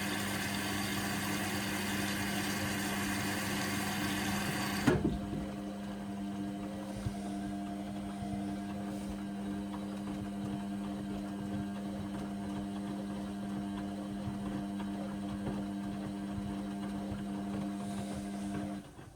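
Indesit washing machine topping up with water during the main wash: a hiss of inflowing water over a steady hum. The water stops abruptly about five seconds in with a small knock, leaving only the machine's steady hum, which cuts off near the end.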